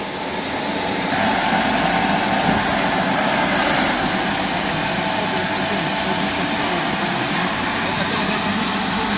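Tornado ASZ-3000 automatic rug washing machine running its pre-soak and brushing section: brushes scrubbing a dry rug while water with detergent is sprayed on, a steady mechanical running noise that grows louder about a second in.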